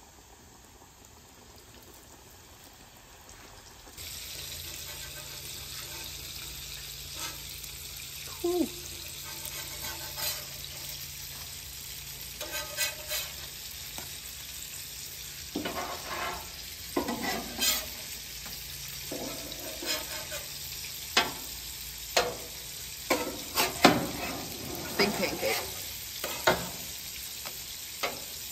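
Pancakes sizzling on a flat-top griddle, with a metal spatula scraping and clicking against the steel plate as it slides under them and flips them. The sizzle comes in abruptly about four seconds in, and the spatula clicks grow busier in the second half.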